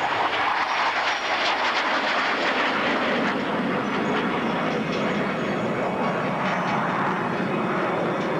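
Military jet engine roaring as the jet passes and pulls up into a climb, a steady rushing noise that is a little brighter in the first few seconds.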